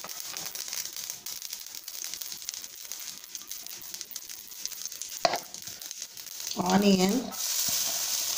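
Mustard seeds crackling and sizzling in hot oil in a nonstick frying pan, stirred with a wooden spatula, with a sharp knock about five seconds in. A brief wavering tone comes near the end, and then the sizzle turns louder and steady as chopped onions are tipped into the oil.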